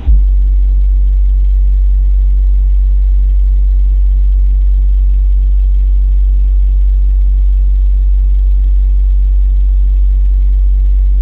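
A 10-inch car subwoofer playing a single steady low bass test tone at high volume, starting abruptly and holding an even level, for an SPL meter reading. A faint pulsing buzz sits above it, about three times a second.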